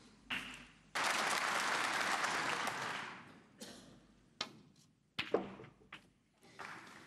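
Snooker audience applauding for about two seconds, fading out. A few sharp clicks of the cue tip and snooker balls follow.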